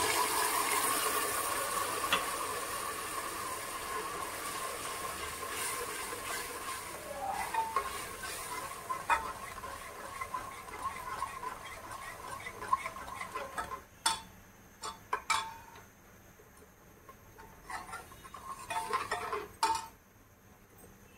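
Sizzling in a pan of hot oil, fading steadily over the first dozen seconds or so, then quiet with scattered sharp clinks of a spoon against the pan.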